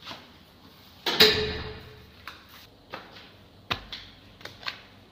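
Rubber flip-flops slapping against tile steps, a series of short sharp slaps. About a second in there is one much louder knock that rings on briefly.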